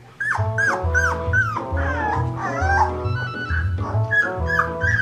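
Upbeat background music with a pulsing bass line starts suddenly just after the start. Over it come repeated short, falling whimpers from three-week-old yellow Labrador puppies.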